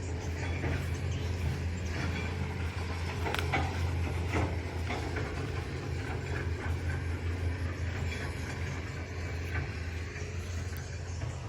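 Excavator's diesel engine running steadily with a low hum, with a few short knocks about three to five seconds in.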